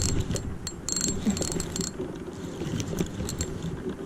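Spinning reel being cranked to bring in a hooked fish: a spell of whirring and clicking from the reel about a second in, over a steady rumble of highway traffic and wind on the microphone.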